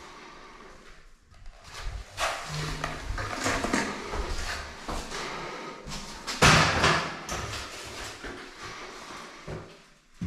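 Scrapes and knocks of a plastering spatula working finishing compound across a wall, irregular and uneven, with one sharper knock about six and a half seconds in.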